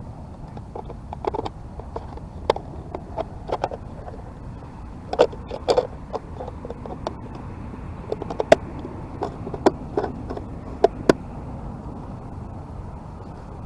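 Irregular clicks and light knocks of hands handling a plastic RC boat and its transmitter, over a steady background hiss.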